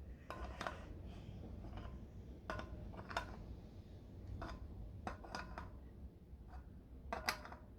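Faint, light metallic clicks and ticks at an uneven pace, about one or two a second, some with a short ring and the sharpest near the end: the pit bike's wheel spokes being gone over one by one to check that none are loose.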